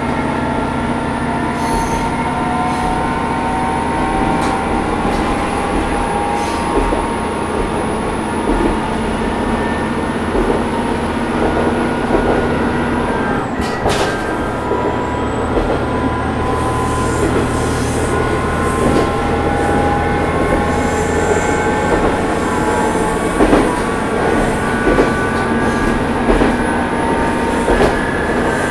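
Matsuura Railway MR600 diesel railcar running, heard from inside the car: a steady engine drone with a transmission whine that drifts slowly in pitch. There is a sharp knock about halfway through, and clicks from the wheels over rail joints come more often in the second half.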